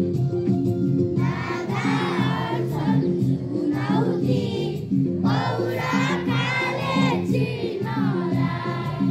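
A group of children singing together in phrases over instrumental music, with a steady pattern of low accompanying notes. The singing comes in about a second in.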